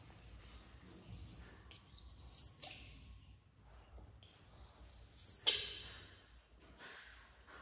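Baby macaque screaming for its mother: two loud, high-pitched calls, each under a second long and rising sharply in pitch at the end.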